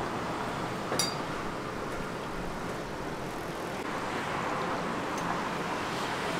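Steady street background noise with passing traffic, and a single light metallic clink about a second in.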